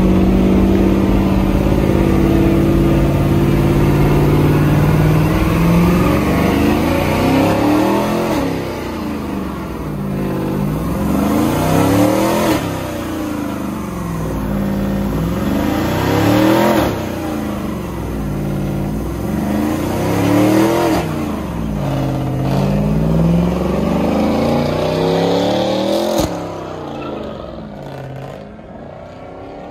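Pickup truck doing a burnout, rear tyre spinning on the pavement. The engine is first held at a steady high rev, then revved up and down over and over, about once every two seconds. The sound fades near the end.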